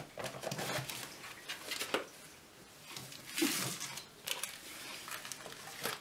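Glass dish and ceramic plate being handled, slid and set down on a tabletop: light clatter with a few sharp knocks, the loudest about two seconds in, and a brief scrape midway.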